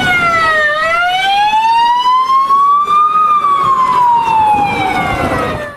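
Ambulance siren wailing with slow glides in pitch. It falls for about the first second, rises for about two and a half seconds, then falls again until it cuts off near the end.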